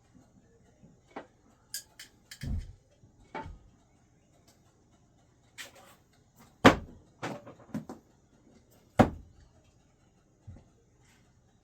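No-spin thrown screwdrivers hitting the throwing target: a series of separate sharp knocks of varying loudness, the two loudest a couple of seconds apart in the second half, with a short cluster of smaller knocks between them.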